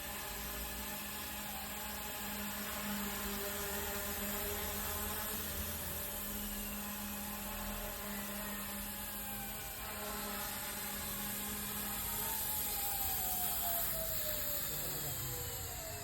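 Goosky E2 electric RC helicopter running, a steady whine of its motors and rotors over a high hiss. In the second half several whining tones slide steadily down in pitch.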